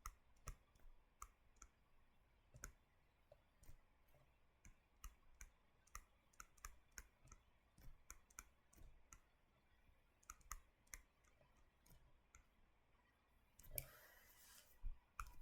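Faint, irregular light clicks, a few a second, with a brief scratchy rustle near the end.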